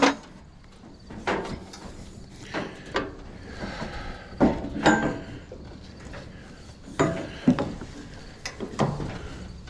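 Irregular footsteps and knocks, about nine over several seconds, of a person moving about on a plywood roof deck.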